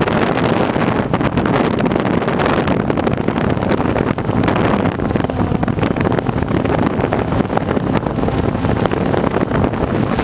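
DJI Phantom 1 quadcopter's motors and propellers buzzing steadily in flight, picked up by the GoPro mounted under it, with gusty wind buffeting the microphone.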